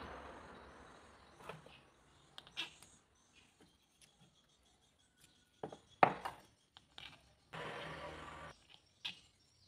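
Faint handling sounds: small clicks and a few sharp taps as a stack of plastic plates with a steel bolt through it is handled, loudest about six seconds in. A short noisy rasp about a second long comes near the end, and a steady noise fades out in the first second or so.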